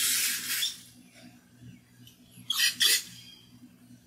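Aerosol carb and choke cleaner sprayed through the passages of a small-engine carburetor to flush out gum: a steady hiss for about a second, then two short, sharp spurts about two and a half seconds in.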